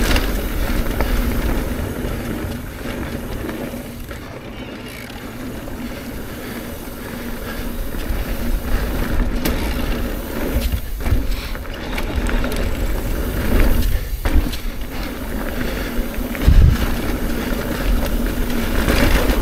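Trek Rail electric mountain bike rolling fast down a dirt trail: steady tyre and wind rush with the bike rattling, easing off for a couple of seconds early on and swelling again, with one hard thud about three-quarters of the way through.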